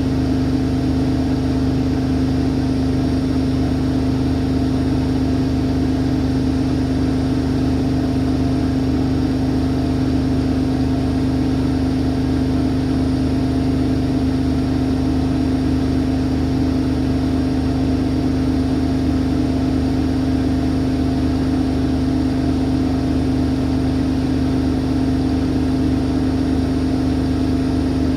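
Siemens Siwamat iQ 716 washing machine spinning at a steady speed: an even motor hum with one strong constant tone that holds its pitch and level throughout.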